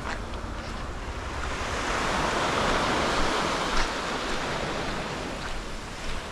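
Small waves washing onto a sandy beach: a rushing noise that swells to a peak in the middle and then eases off.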